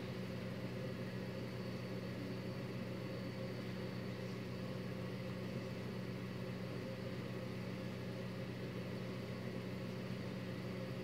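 Steady low mechanical hum with an even hiss above it.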